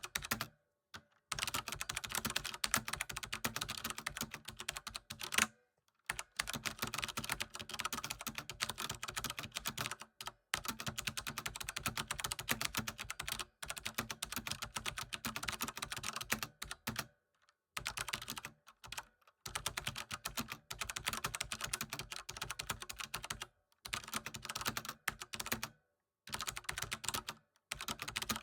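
Computer keyboard typing: fast, continuous runs of key clicks broken by brief pauses every few seconds.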